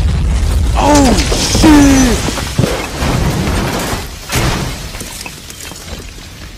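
Explosion sound effect: a loud, rumbling blast with crashing, and two short gliding cries over it between one and two seconds in. Another crash comes about four seconds in, and then it fades away.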